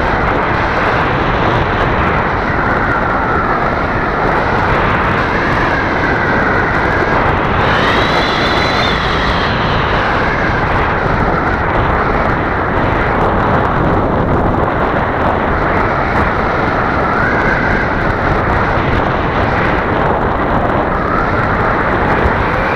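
Wind rushing over a wing-mounted camera on a flying radio-controlled model Cessna 350, with the whine of its motor and propeller underneath, wavering in pitch and climbing higher for a moment about eight seconds in.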